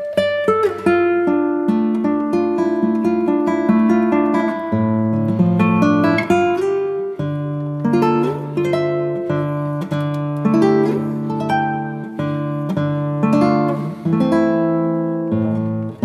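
Background music of plucked acoustic guitar, picked notes and strummed chords.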